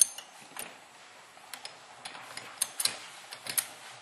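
Scattered sharp clicks and clinks of small parts of a CYMA CM-032 M14 airsoft rifle's bolt assembly being handled. There are about half a dozen of them, irregularly spaced, over a faint steady background.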